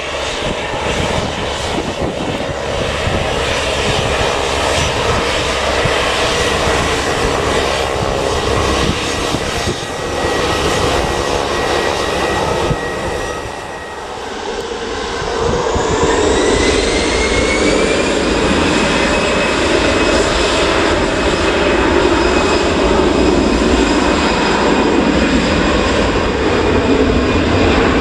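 Jet airliner's turbofan engines running loud. A little past halfway the sound dips briefly, then a whine rises in pitch and holds steady as the engines spool up.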